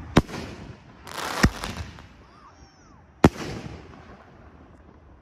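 Consumer 5-inch canister firework shells going off: three sharp booms about a second and a half apart, each trailing off in a rolling echo, the last the loudest.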